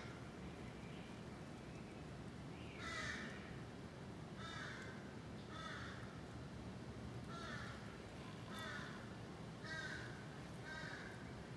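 A bird calling in the background: short repeated calls, about seven in all, one every second or so, the loudest about three seconds in, over a steady low outdoor hiss.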